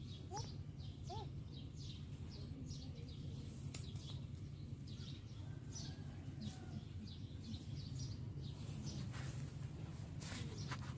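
Small birds chirping repeatedly in quick short calls over a steady low background hum.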